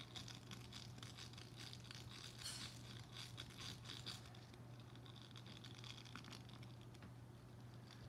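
Fingertips scratching and rubbing the nubbed surface of a soft green face-scrubber pad held close to the microphone. The result is a dense run of fine, crackly scratches that thins out in the second half.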